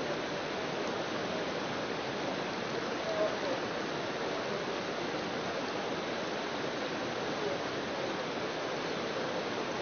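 Whitewater rapids rushing steadily through a slalom course, a constant noise of churning water.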